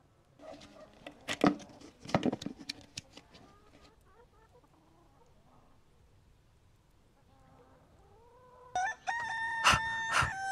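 A man imitating a rooster's crow: one long call held on a steady pitch, starting near the end. Before it come a few faint clicks and knocks.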